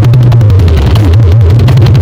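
Very loud, heavily distorted bass-heavy music from a carnival sound-system rig, with a deep bass line stepping between notes.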